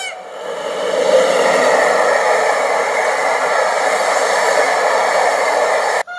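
A locomotive-hauled passenger train passing, a steady rushing noise of the carriages on the rails, heard through computer speakers with little bass. It cuts off suddenly near the end.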